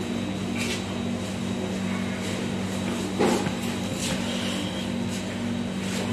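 Steady low electrical hum of a kitchen appliance, with a few light knocks and clatters from kitchen handling, the clearest about three seconds in.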